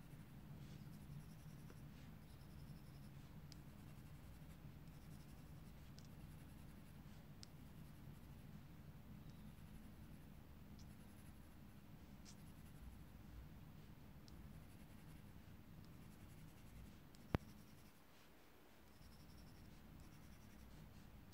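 Very faint scratching of a graphite pencil shading a small paper tile, over a low steady hum, with one sharp click late on.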